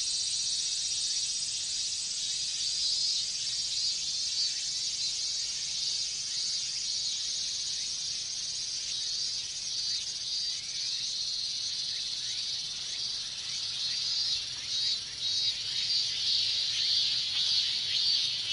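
A dense chorus of cicadas, robust cicadas (minmin-zemi) among them, buzzing steadily and high-pitched, growing louder and pulsing in the last few seconds.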